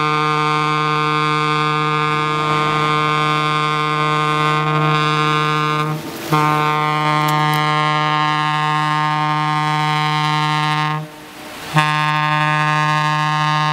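Ship's horn sounding long, steady blasts on one low note with many overtones, breaking off briefly about six seconds in and again for under a second near the end, blown for a ship's sideways launch.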